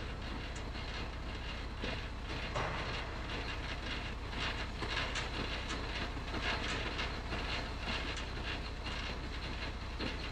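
Semi-trailer landing-gear crank being wound by hand, its gears clicking and clacking in a loose rhythm over the steady low hum of an idling diesel truck engine.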